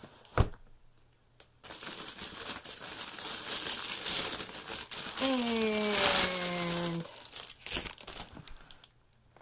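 A single thump near the start, then several seconds of plastic wrapping crinkling and rustling as a zippered hard-shell storage case is handled out of its bag.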